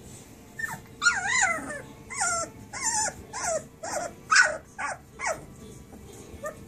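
Very young puppies whining and squealing: a run of short, high cries, each falling in pitch, starting about a second in and ending after about five seconds.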